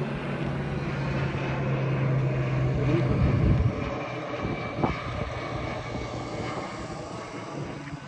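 Fixed-wing firefighting aircraft flying overhead, its steady engine drone building to its loudest about three and a half seconds in, then fading. A brief click near five seconds.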